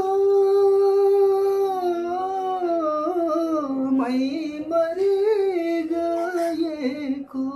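A man singing a Nepali song unaccompanied, drawing out long held notes. The first note is steady for about two seconds, then the voice wavers and turns through ornamented phrases, with a short breath about four seconds in.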